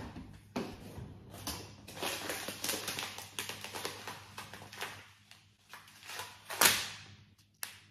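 Rustling and crinkling of a plastic food packet being handled, with scattered light clicks and knocks and one louder burst of noise about two-thirds of the way in.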